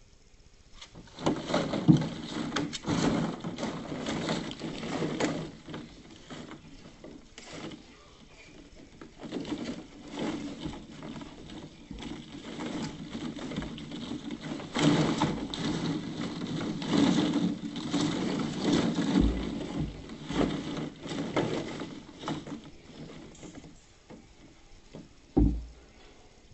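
Plastic ball-pit balls rattling and clattering against each other and the plastic kiddie pool as a puppy climbs in and digs through them, in two long spells with a lull between. A single low thump near the end.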